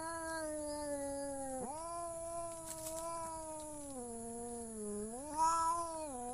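Domestic cat yowling in three long drawn-out calls, each sagging slowly in pitch. The last call swells louder near the end.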